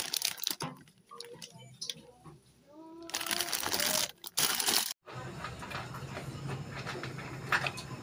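Clear plastic packaging crinkling and rustling as a coiled PVC washing machine inlet hose is handled and unwrapped, loudest in two bursts: one at the start and one from about three to five seconds in. The sound cuts off abruptly about five seconds in and gives way to a steady low hum with light clicks.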